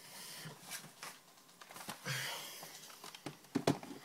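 Trading cards being handled on a desk: soft rustling, a louder rustle about two seconds in, and a few light clicks near the end.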